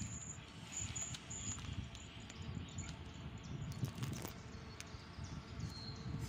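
Faint outdoor ambience on a railway platform: a low, uneven rumble, with a few short high chirps in the first second and a half and a couple of faint clicks.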